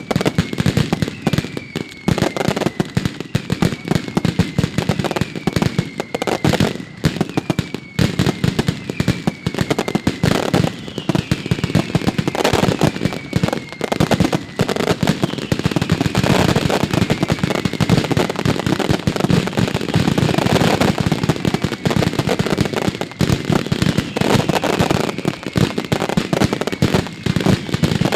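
Mascletà: a dense, continuous barrage of firecracker bangs, with short falling whistles repeating about once a second over the din.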